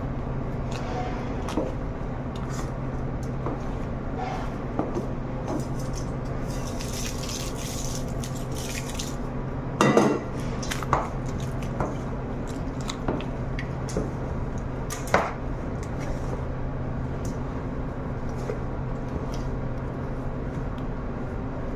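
Plastic spatula folding thick gelato in a stainless steel bowl: soft scrapes and irregular clicks against the metal, with a couple of sharper knocks about ten and fifteen seconds in, over a steady low hum.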